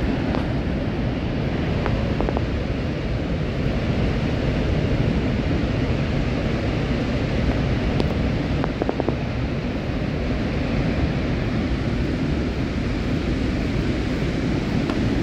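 Niagara's Horseshoe Falls: a steady, deep rush of a huge volume of water plunging into the gorge.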